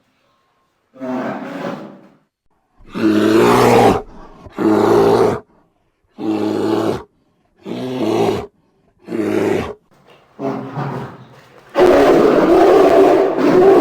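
Bear roaring: a series of about seven short roars with brief pauses between them, then a longer, unbroken roar starting near the end.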